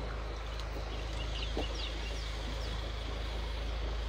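Steady outdoor rushing noise with a low rumble, like wind on the microphone, with several short, high, falling bird chirps in the middle.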